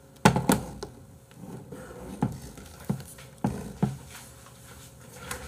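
Dishes and utensils knocking and clattering on a table as a large plate of noodles and a bowl of kimchi are set down: about six sharp knocks, the loudest about a quarter second in.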